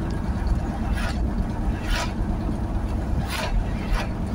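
Steady low road and engine rumble inside a moving car on a highway, with a few brief hissing swishes, the last as an oncoming car passes close by near the end.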